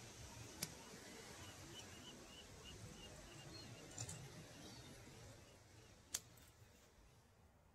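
Near silence: a faint hiss fading out, with a few faint clicks and, about two seconds in, a quick run of about ten faint high pips.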